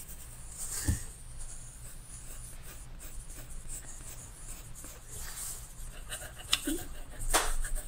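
Pencils scratching and rubbing on sketchbook paper as a dark area is shaded in, with a couple of soft taps about a second in and near the end.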